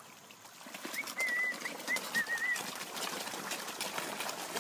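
A mass of fish thrashing and slurping at the water surface, a busy patter of small splashes that picks up just under a second in. Over it a bird chirps a short, wavering phrase of several notes.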